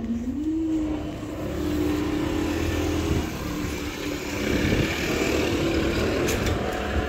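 A car driving over the level crossing, its engine note dipping at the start and then rising as it pulls away, with tyre noise swelling a few seconds in.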